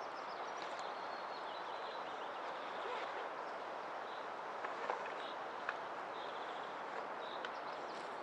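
Outdoor woodland ambience: a steady rushing noise with faint short bird chirps scattered through it and a couple of sharp clicks about five seconds in.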